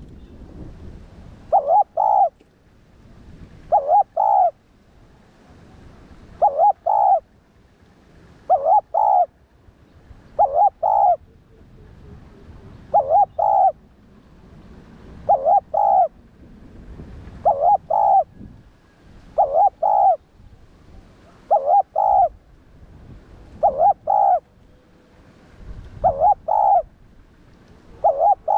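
Spotted dove cooing its song over and over, a short phrase of a few low hooting notes repeated about every two seconds, a dozen times in all.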